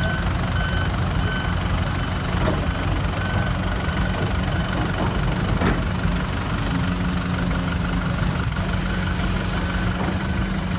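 Heavy diesel engine of earthmoving machinery running steadily. A high-pitched reversing alarm beeps a few times in the first seconds, and there are two short knocks, about two and a half and five and a half seconds in.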